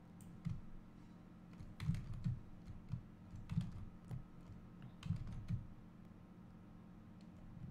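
Computer keyboard and mouse clicks: a dozen or so scattered taps, some in quick pairs, over a faint steady hum.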